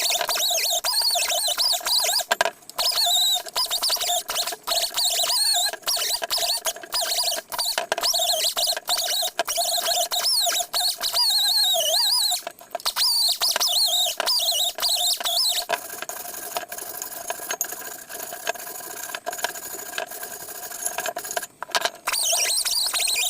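A power tool's sanding attachment squealing against a rusty steel tiller wheel, over a steady motor whine. The sound is interrupted by many abrupt cuts and is quieter for a few seconds in the second half.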